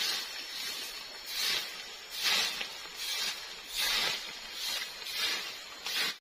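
A stick broom sweeping dry fallen leaves across dirt ground: a run of rustling, scraping swishes, one roughly every three-quarters of a second.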